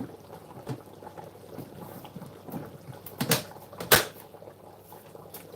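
A few short knocks and clicks of handling, the two loudest about three and four seconds in, over a low background hiss.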